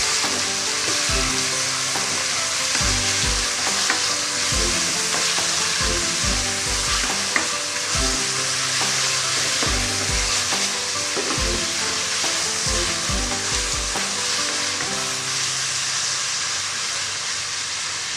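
Chicken pieces stir-frying in hot oil in a frying pan: a steady sizzle as they brown on the outside.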